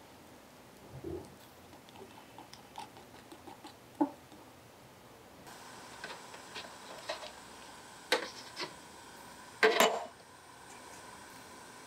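Light clicks and taps of small kitchen utensils and cookware being handled, with two louder knocks in the second half, the later one the loudest.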